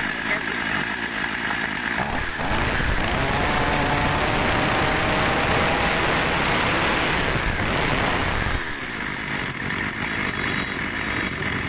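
Ryobi 43 cc two-stroke chainsaw running at idle, then revved up from about two seconds in with the chain spinning. It drops back to idle about eight and a half seconds in.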